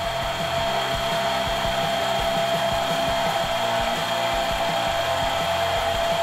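Mini lathe with a brushless motor conversion running steadily with no load at about 1,930 rpm, its spindle turning on newly fitted tapered roller bearings. A constant steady whine sits over the running noise.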